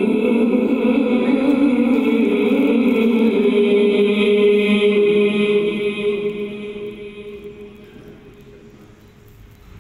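Unaccompanied vocal chanting in long, held notes with no instruments, which fades out over about two seconds past the middle and leaves only a low background.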